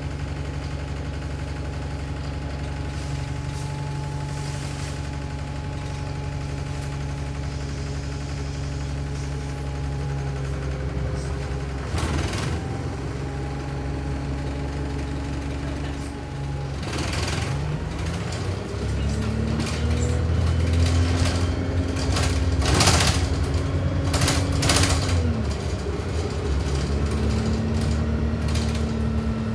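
A Wright StreetLite single-deck bus heard from inside the saloon. Its engine runs steadily at first, then from about halfway through it pulls away, the engine note rising and dropping back as it gathers speed and getting louder. A few short sharp noises come from the bus along the way.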